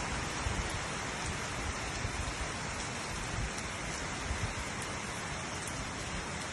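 Steady rain falling: an even hiss of rain with scattered drop ticks and a few brief low thumps.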